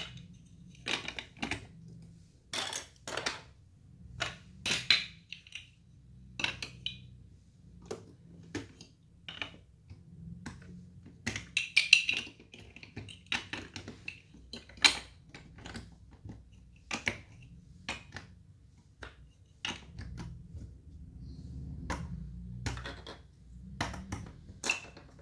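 Plastic Lego Duplo bricks clicking and clacking as hands set them down and press them onto a baseplate and onto each other. The clicks are sharp and irregular, with a quick cluster about halfway through.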